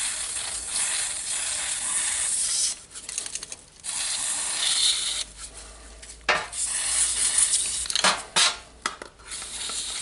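Aerosol electronic contact cleaner spraying in two long hissing bursts into a cordless hammer drill's trigger switch to clean its dirty contacts, followed by shorter sprays mixed with clicks and light rattles of the parts being handled.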